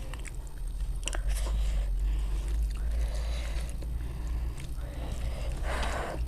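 Close-up eating sounds: a person chewing food, with a few sharp mouth clicks about a second in and soft wet chewing later, over a steady low hum.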